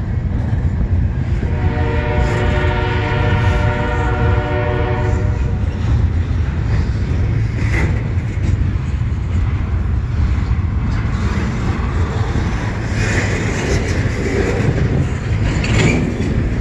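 Double-stack intermodal well cars rolling slowly past with a steady low rumble of wheels on rail. A locomotive horn sounds one long blast from about a second and a half in, lasting about four seconds.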